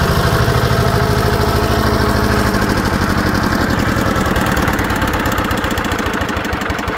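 Single-cylinder power-tiller diesel engine, fitted to a converted tractor, running steadily with a fast, even chugging beat; its sound shifts about two and a half seconds in.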